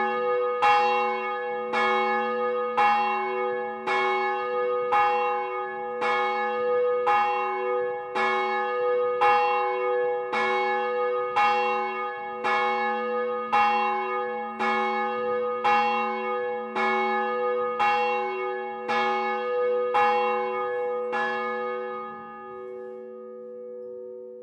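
A swinging bronze church bell tolling, its clapper striking about once a second, each stroke ringing on into the next. The strokes stop a few seconds before the end as the bell swings to rest, and its tone fades away.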